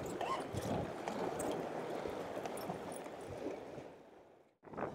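Sea water washing against shoreline rocks as a steady, low wash with a few faint ticks, fading out to silence about four seconds in.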